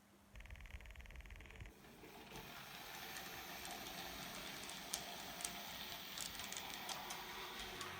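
Model railway train running on the layout's track. A small electric motor buzzes for about a second and a half near the start, then a steady rolling rumble builds, with sharp clicks of the wheels over rail joints and points in the second half.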